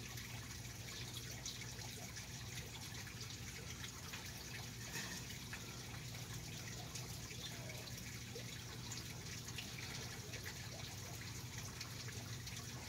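Faint steady trickle of running water over a low steady hum.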